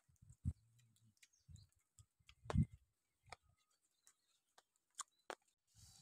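Faint eating sounds of a man eating grilled fish by hand: soft chewing with a few sharp mouth clicks and smacks scattered through.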